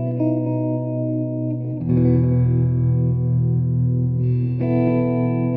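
Instrumental worship music: sustained electric guitar chords played through effects. A deep bass note comes in with a chord change about two seconds in, and the chord changes again near the end.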